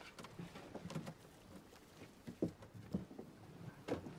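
A rope fishing net being gathered up and passed over in a wooden boat: soft rustling with a few light knocks scattered through it.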